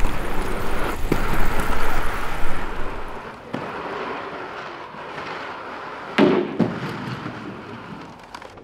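Outdoor street noise with wheels rolling over pavement, loudest for the first three seconds. A sharp knock comes about six seconds in.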